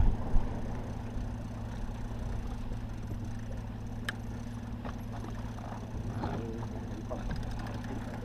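Boat engine running steadily with a low hum. A single sharp click about four seconds in.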